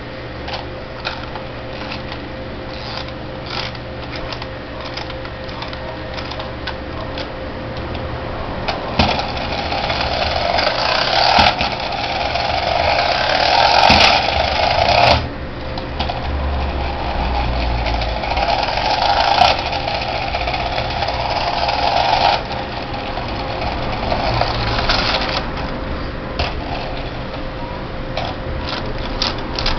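Battery-powered motor and gear mechanism of a 1990s Glasslite Teenage Mutant Ninja Turtles toy helicopter running with a steady whir. It gets louder and rattlier twice, from about nine seconds in and again from about sixteen seconds, the first burst cutting off suddenly.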